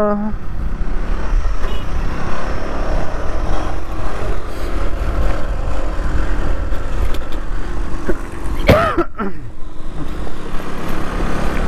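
Motorcycle riding along a road: a steady low engine rumble with wind noise on the microphone. About nine seconds in a short tone sweeps up and back down.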